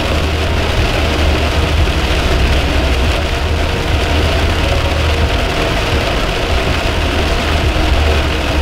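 A car driving in a heavy downpour, heard from inside the cabin: a steady low engine and road rumble with rain hissing on the windscreen and wet road.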